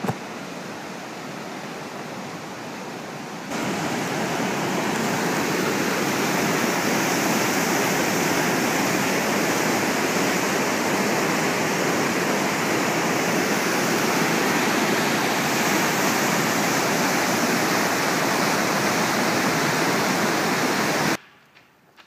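Waterfall and whitewater rapids rushing in a steady, even roar of water. It steps up louder about three and a half seconds in and cuts off abruptly near the end.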